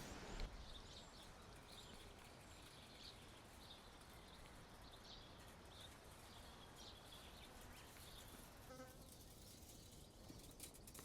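Near silence in open farmland, with faint bird chirps scattered throughout.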